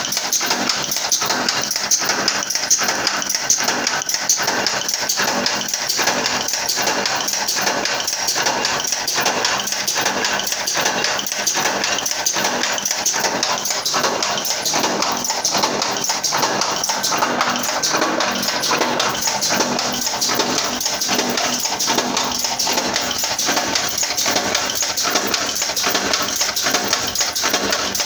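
Power press running a progressive die on metal strip: a fast, steady run of stamping strokes, knock after knock without a pause.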